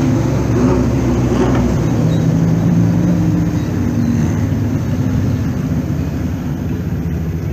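Engines of classic sports racing cars driving slowly past, one after another, with a steady low engine note.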